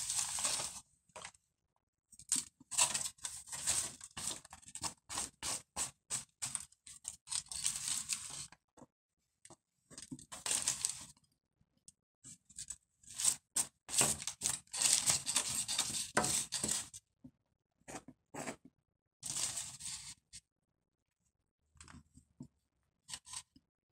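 Aluminium foil crinkling and rustling in irregular bursts as it is handled, with short pauses between, sparser and fainter near the end.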